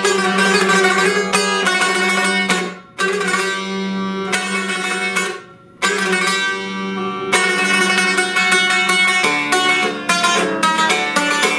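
A long-necked, fretted, bowl-backed lute played solo with a pick: a quick melody of plucked notes over a ringing low drone string. It pauses briefly about three seconds in and again around five and a half seconds. The drone drops out about halfway through.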